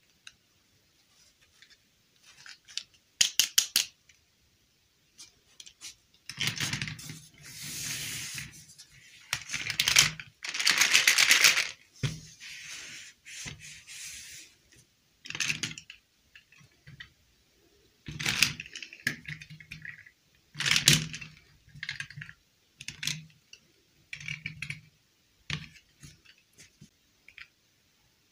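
Small hard-plastic dolls and a plastic crate being handled: a quick run of sharp clicks, then longer rattling, scraping stretches as the dolls are moved about, then scattered taps and knocks as figures are set down.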